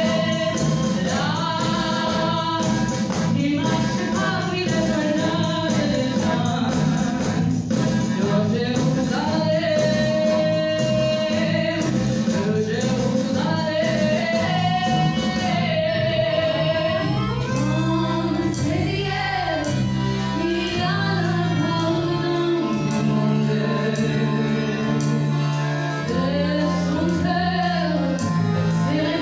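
Live band and singers performing a French chanson number: a lead voice and an ensemble singing over drums and sustained chords, with a steady beat.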